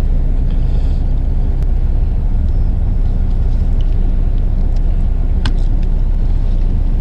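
Fishing boat's engine running steadily, a low rumble heard from on deck, with a light click about five and a half seconds in.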